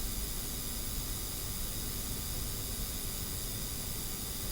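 Steady hiss of background noise with no distinct events: recording noise or room tone.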